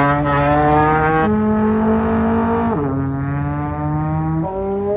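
Trombone playing four long held notes: a step up about a second in, a slide down near three seconds, and a step up again near the end.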